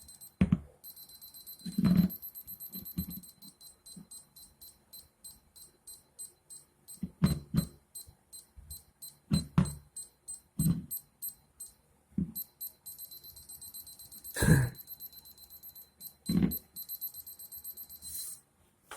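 Moisture meter beeping high and electronic as it is moved along a damp wall. The tone is sometimes held steady and sometimes pulses in rapid beeps, about four a second, with occasional soft knocks of the meter and hands against the wall.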